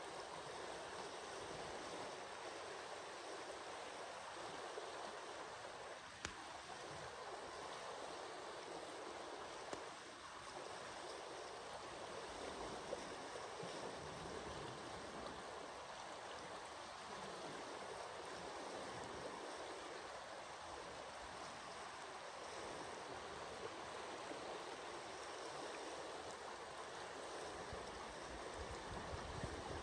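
The Lower Deschutes River rushing, a steady, even hiss of moving water.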